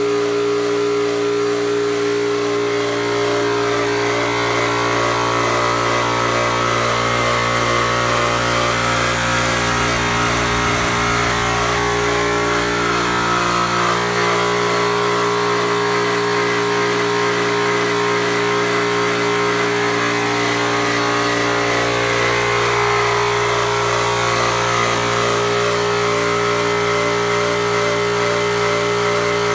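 Tornado 3000 (Kidde) high-pressure breathing-air compressor, driven by a Doerr electric motor, running steadily at an even pitch while filling a scuba tank.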